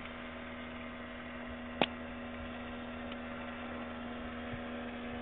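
A steady low hum, with one sharp click a little under two seconds in.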